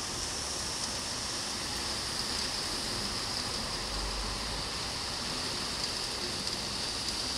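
Heavy rain and floodwater rushing: a steady, even hiss of water, with a brief low rumble about four seconds in.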